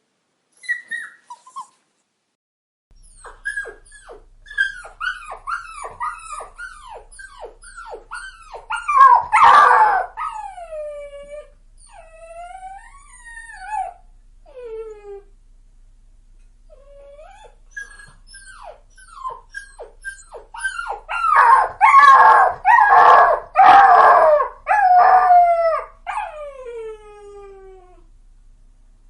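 Puppy crying: a run of short high whimpers, each falling in pitch, about two a second. Twice they swell into loud yelping cries, each followed by long drawn-out falling whines.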